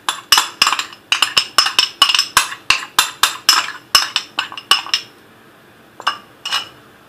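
A metal utensil clinking rapidly against a glass bowl, about four strikes a second. The strikes stop about five seconds in, followed by two more clinks.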